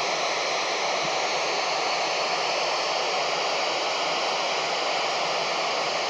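FM receiver static from a Kenwood handheld radio tuned to the International Space Station's 2-metre downlink: a steady rush of hiss with a faint steady tone underneath, heard when the station's transmitter has stopped sending and the receiver picks up only noise.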